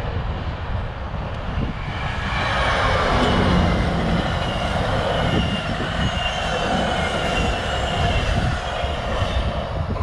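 GO Transit bilevel commuter train passing close, its wheels rumbling on the rails, getting louder from about two seconds in. A thin, steady high squeal from the wheels runs through the middle of the passage.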